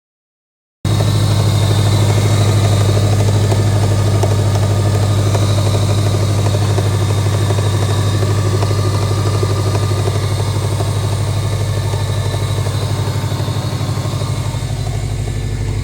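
Car engine idling steadily. The sound cuts in abruptly about a second in.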